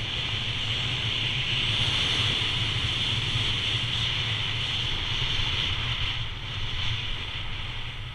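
Wind rushing over the camera microphone, mixed with the hiss of sliding fast over groomed snow at around 20 mph; the rush eases a little about six seconds in.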